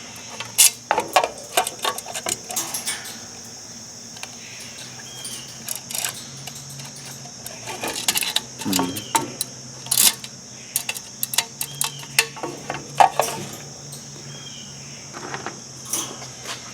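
Irregular clicks, taps and clinks of small metal parts and wires being handled while an electric fan motor is reassembled, over a steady high-pitched background drone.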